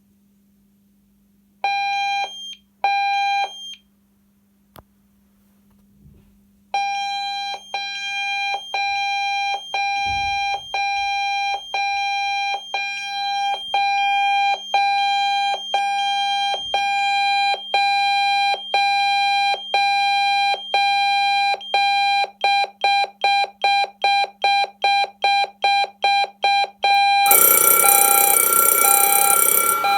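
Intruder alarm sounding through its extension speaker over a faint low hum: two short beeps, then a shrill steady tone broken about once a second, its pulses quickening to about two a second like a countdown timer. About 27 seconds in, the Scantronic Eurobell bell box starts ringing, much louder.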